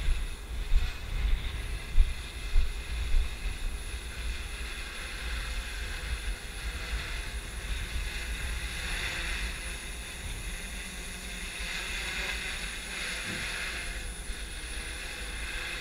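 A DJI S900 hexacopter's six motors and propellers whirr in a steady hum that grows louder at times as it hovers close by. It is being flown unsteadily under a partial loss of control. Wind buffets the microphone in the first few seconds.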